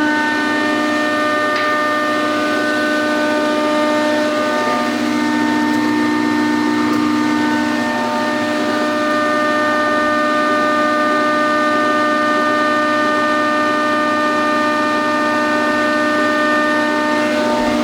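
SCMI S520 10 hp planer running empty, with no wood being fed: a steady hum made of several held tones. A few of the tones shift slightly about halfway through.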